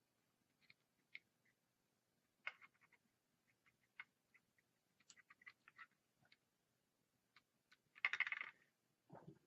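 Faint, scattered clicks and ticks of small tools handled at a workbench during desoldering with solder wick, with a denser, louder crackle of clicks lasting about half a second near the end.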